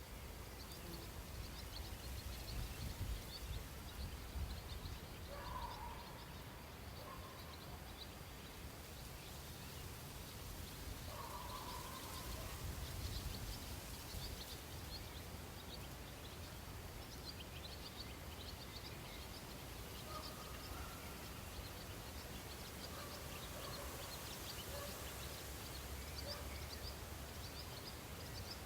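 Outdoor ambience: birds chirping faintly and rapidly over a steady low rumble, with a few short lower bird calls about 5, 11 and 20 seconds in.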